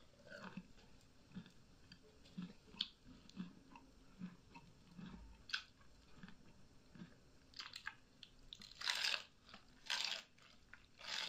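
Close-up chewing and biting of crisp lettuce: small wet mouth clicks, then a few louder crunches near the end.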